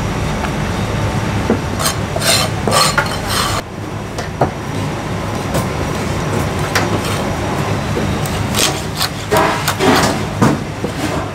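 Chinese cleaver cutting marinated goose on a thick round wooden chopping block: irregular knocks of the blade against the wood, thickest a couple of seconds in and again near the end, over a steady hum of kitchen machinery.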